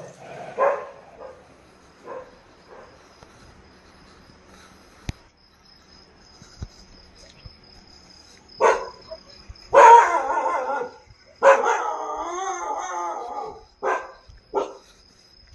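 Dog barking and yelping: a few scattered barks, louder sharp barks a little past halfway, a long wavering cry, then two short barks near the end, over a faint steady high whine.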